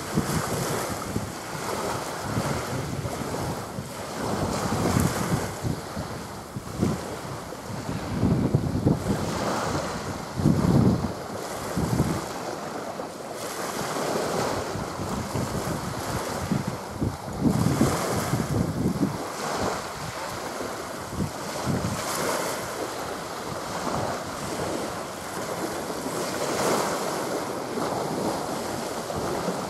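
Wind buffeting the microphone in irregular gusts, over small waves washing on the shore.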